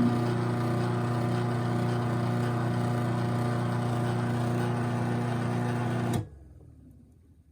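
Craftsman 1/2 hp chain-drive garage door opener motor running steadily under load as it drives the door, a steady hum with a chain-drive rattle, then stopping abruptly about six seconds in at the end of its travel.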